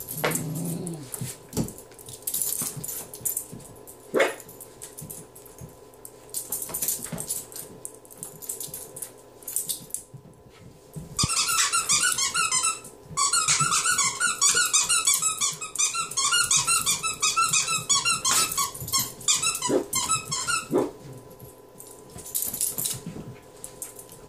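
A dog playing with a squeaky toy. Scuffling and clicks come first, then from about halfway a long run of rapid squeaks, several a second, broken once by a short pause, as the dog bites and shakes the toy.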